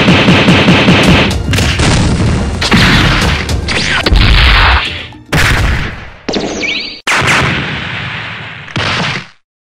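Animated-fight sound effects: a rapid volley of punch impacts, about six a second, then a run of heavy booming hits, each trailing off. The last hit cuts off suddenly into silence near the end.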